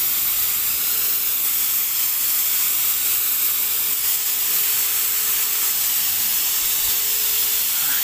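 Wagner handheld electric paint sprayer running and spraying water: a steady airy hiss that sounds like a vacuum cleaner, with a steady motor tone underneath that fades near the end.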